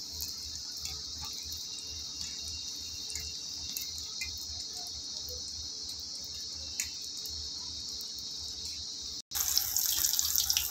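Oil in a steel kadhai sizzling steadily around besan-battered brinjal fritters as they deep-fry, with faint scattered crackles and light ticks of a wire skimmer against the pan. A little after nine seconds the sound breaks off abruptly and comes back as a louder, busier sizzle of a fresh batch of battered slices just in the hot oil.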